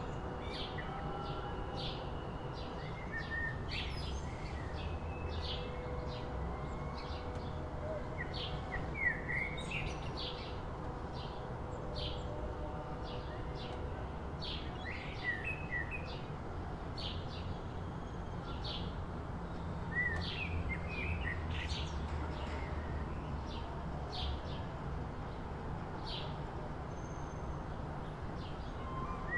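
Several small birds chirping and calling in short, quick notes throughout, over a steady low background rumble.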